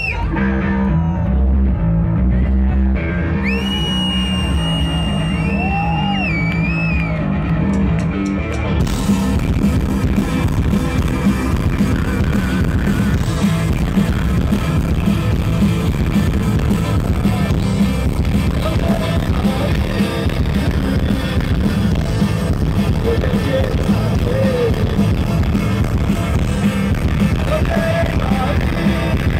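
Rock band playing live through a PA, with electric guitar, bass, drums and sung vocals. A sparser opening with a few high gliding tones gives way to the full band about nine seconds in.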